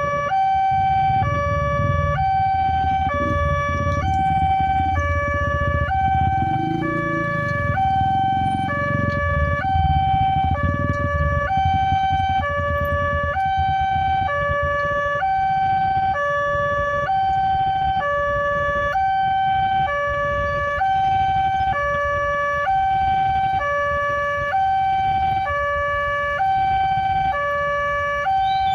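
Railway level-crossing warning alarm: an electronic two-tone signal switching steadily between a lower and a higher pitch, each held about half a second, which sounds while a train approaches and the barriers are down. A low rumble of waiting motorbike traffic sits underneath, fading after the first ten seconds or so.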